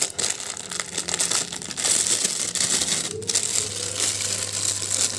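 Clear plastic bag crinkling in the hands as it is handled and opened, an irregular run of crackles and rustles.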